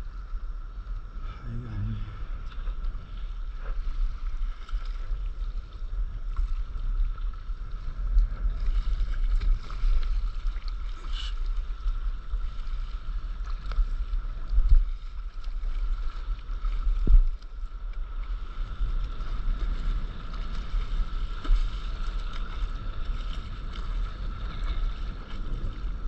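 Sea water sloshing and lapping around a small board afloat on the open sea, over a constant low wind rumble on the microphone. Two heavier thumps about halfway through.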